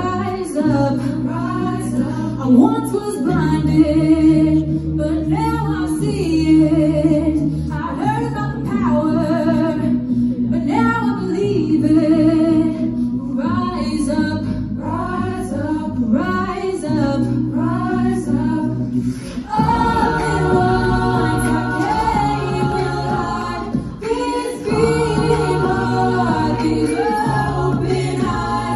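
A high school a cappella group singing into handheld microphones: a female soloist sings the lead over the group's vocal backing and a low sung bass line. About twenty seconds in, the backing swells into full held chords.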